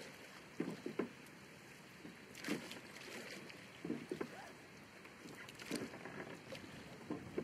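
Quiet recorded sound of oars dipping and pulling through water from a rowing boat, a stroke about every one and a half seconds.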